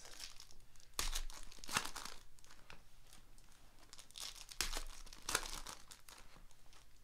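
Foil trading-card pack wrapper being torn open and crinkled by hand, in a few short crackling bursts about a second in and again around four and a half to five and a half seconds in.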